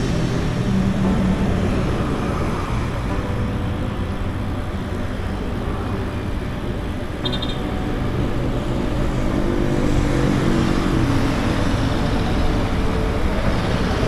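Road traffic on a busy multi-lane road running alongside, with cars and a bus passing. It is heard over a steady rush of wind and rolling noise from a moving bicycle.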